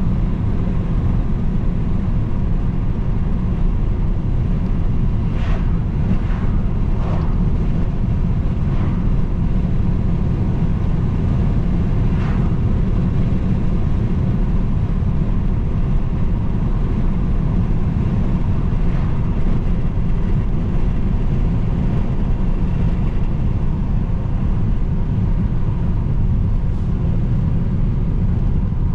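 A car driving: a steady low rumble of road and engine noise, with a few faint brief sounds about five to seven seconds in and again around twelve seconds.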